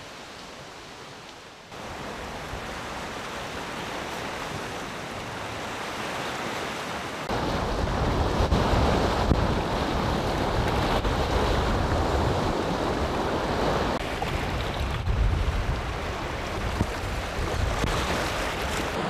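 Wind-driven Lake Superior waves washing and breaking over a rocky shore in gusty wind. The sound gets louder in two steps, about two seconds in and again about seven seconds in, and from there on a low wind rumble is on the microphone.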